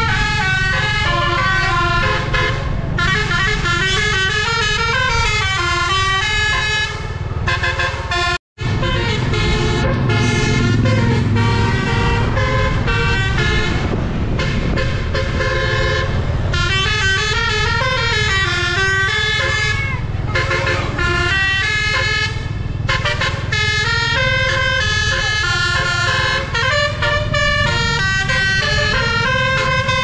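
Bus 'telolet' musical air horn of the Basuri type, several trumpets playing a fast melody of stepping notes without pause, over a steady low rumble. The sound briefly cuts out about eight and a half seconds in.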